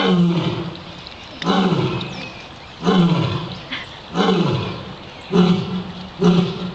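A lioness giving a series of six deep, loud coughing calls. They start about 1.5 s apart and come shorter and closer together toward the end.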